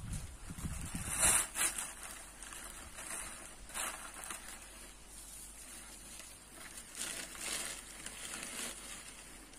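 Dry leaves and twigs rustling and crackling in irregular short bursts as they are gathered up off the ground by hand, the loudest burst about a second in.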